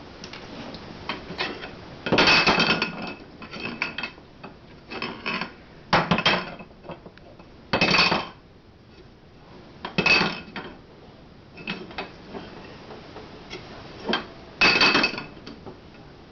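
Repeated clattering bangs, about nine short bursts spaced a second or two apart, each with a brief ringing tone, as a crawling baby strikes a hard object at floor level.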